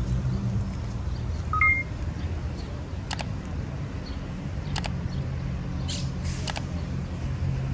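Steady low rumble of city traffic. About a second and a half in, a short two-note electronic beep sounds, a lower note then a higher one, and a few sharp clicks come at intervals.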